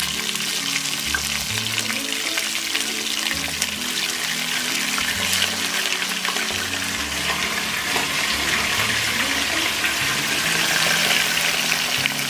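Raw chicken pieces sizzling and crackling in hot oil with whole spices, as more pieces are dropped into the pot.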